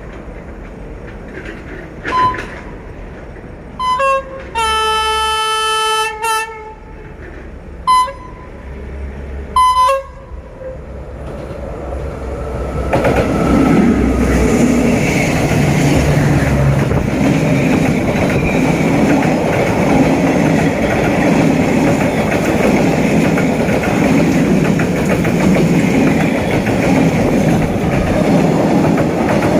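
D20E diesel locomotive's horn sounding a string of short toots and one long blast, then the locomotive and its passenger coaches passing close by, the engine running and the wheels rumbling and clattering on the rails.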